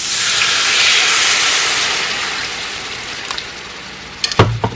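Water poured into a hot pan of fried curry blue crab, setting off a sizzling hiss that swells over the first second and slowly dies away. A few sharp knocks near the end.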